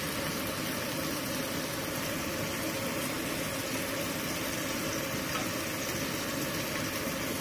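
Tofu, egg and tomato cooking in a frying pan, sizzling and bubbling steadily over the stove.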